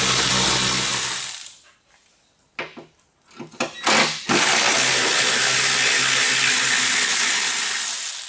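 Cordless power tool spinning off the nuts that hold the exhaust heat shield above the rear silencer. A run of about a second is followed by a few short clicks, then a longer run of about four seconds.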